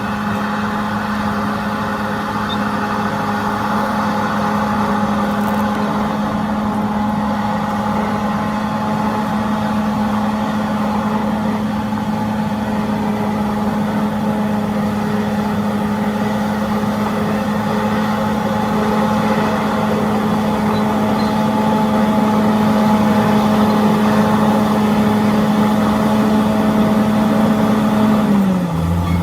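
Diesel engine of earthmoving machinery running at a steady, high speed, with a pitch drop about a second before the end as the engine slows.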